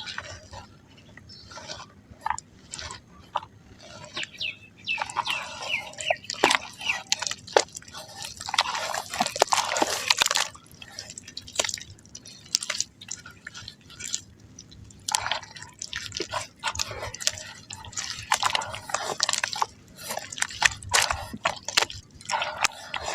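Soft mud crumbling into water: a steady run of small wet plops, drips and splashes, with a longer, denser burst of crumbling about nine to ten seconds in.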